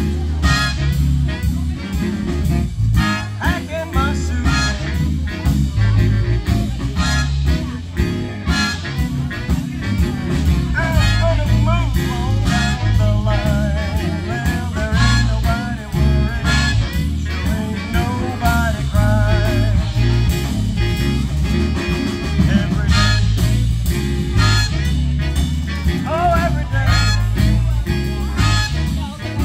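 Swing band playing a tune with a steady beat and strong bass, a wavering melody line standing out through the middle of the passage.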